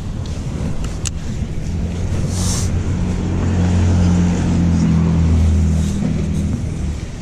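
A motor engine passing by: a low, steady hum that swells to its loudest about four to five seconds in, then fades near the end. A couple of sharp clicks come about a second in.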